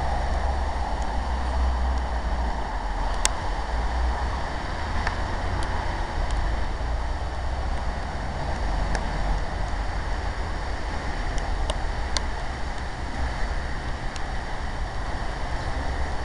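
Steady rain falling, a constant hiss with a low rumble beneath it and a few scattered sharp ticks.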